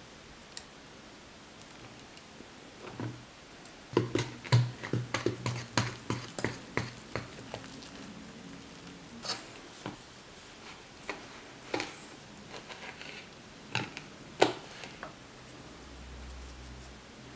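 Wire dough whisk clinking and scraping against a glass mixing bowl as flour is stirred into liquid. A quick run of taps comes a few seconds in, then scattered knocks.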